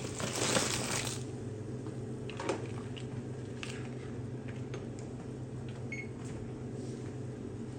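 Live crawfish being tipped into a pot of boiling water: a brief rush of splashing and rattling in the first second. After that, a steady low hum with scattered light clicks and ticks.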